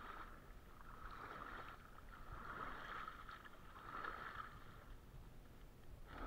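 Faint water splashing and sloshing, swelling and fading several times, as a gill net with a fish caught in it is hauled up out of the water by hand.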